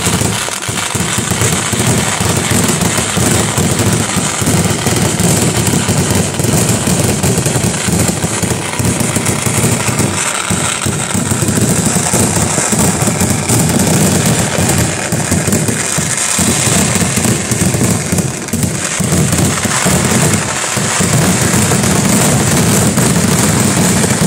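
Kerala temple fireworks (vedikettu) finale: a dense, unbroken barrage of firecrackers and ground fireworks going off, overlapping bangs and crackling with only brief lulls.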